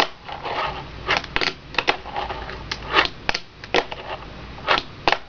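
Fingerboard tapped and flipped on a hard surface: about a dozen sharp, irregular clicks and clacks of the small deck and its wheels striking down, over a faint rolling hiss.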